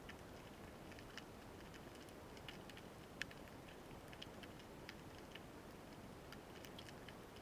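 Faint underwater ambience: a low hiss with sparse, irregular sharp clicks and crackles, one louder click about three seconds in.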